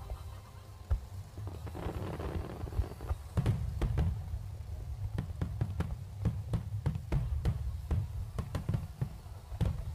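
Aerial fireworks shells bursting over a low rumble: a brief crackle about two seconds in, then from about three seconds a rapid, irregular run of sharp bangs, a few a second.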